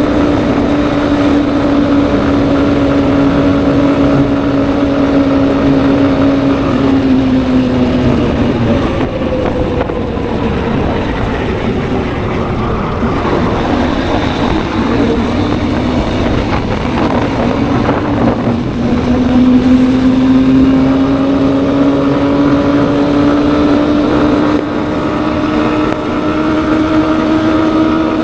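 Honda Hornet 2.0 motorcycle's single-cylinder engine running at cruising speed with wind rushing past the helmet microphone. The engine note holds steady, drops and fades about a quarter of the way in as the revs fall, then climbs steadily in pitch over the last third as the bike accelerates.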